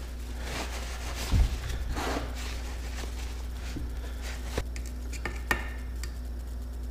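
Shop towel rustling as it is stuffed into an outboard lower unit's gearcase, then a few light clicks and knocks of the metal housing and a screwdriver being handled on a wooden bench, over a steady low hum.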